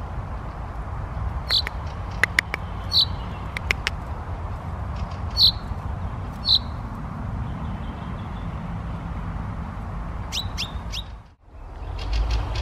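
Common chaffinch giving short, sharp calls at irregular intervals, three in quick succession about ten seconds in, over a steady low rumble.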